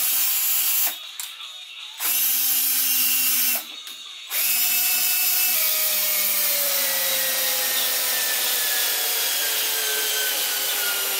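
Cordless drill driver driving a screw into a shiplap board: two short bursts, then a long run of about seven seconds whose whine slowly drops in pitch.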